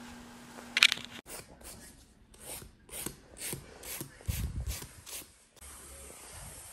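A nail file rasping back and forth across a fingernail in quick strokes, about four a second, for roughly four seconds. A short sharp sound comes just before it, and a steady faint hiss follows near the end.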